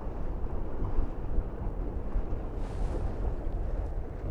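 Wind rushing over the microphone and water noise from a Tornado racing catamaran under sail, a steady low rumble with a short louder hiss about two and a half seconds in.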